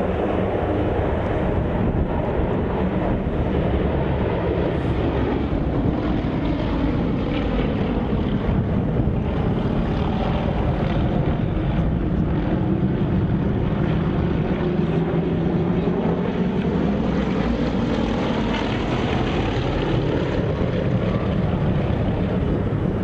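Aircraft engine noise as a fixed-wing aircraft flies past, a loud, steady sound whose tone sweeps slowly down and back up over the pass.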